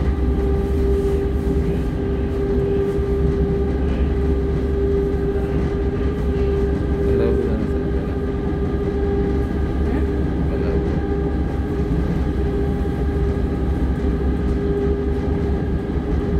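Driverless Milan Metro Line 5 train running through a tunnel at speed, heard from the front of the car: a steady low rumble with a constant whine over it.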